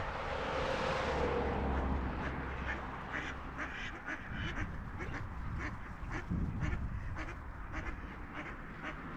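A flock of mallard ducks quacking, many short overlapping quacks. A low rumble, such as a passing vehicle, sits under the first few seconds and dies away about four seconds in.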